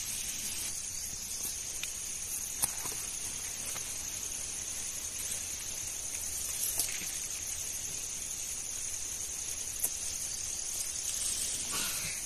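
Steady high-pitched chirring of insects, with a few faint clicks and rustles from hands handling the stakes and bean vines.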